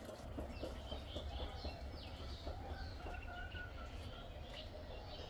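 A mother bird and her chicks calling: many short high chirps and downward-sliding peeps, with a few lower calls underneath, over a steady low rumble.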